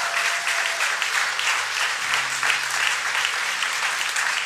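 Congregation applauding: dense, continuous hand clapping from a large audience.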